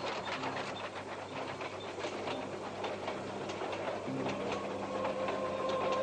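Rapid, irregular mechanical clicking and clattering over low held notes of film score music, with a new low note coming in about four seconds in.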